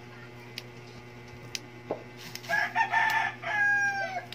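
A rooster crowing once, starting about halfway through: a multi-note crow ending in a long, slightly falling final note. A few faint clicks come before it.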